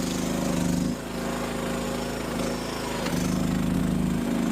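Small gasoline engine of a cheap Chinese mini skid steer running steadily while the machine works, its note weakening about a second in and picking up again about three seconds in.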